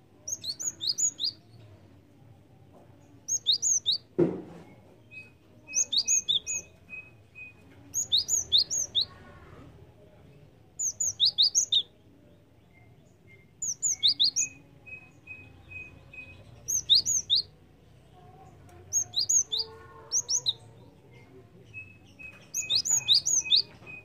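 Cinereous tit (gelatik batu) singing: about ten quick bursts of three to five sharp, high, down-slurred notes, coming every two to three seconds. Some bursts are followed by a run of short, even, lower pips. One sharp knock about four seconds in.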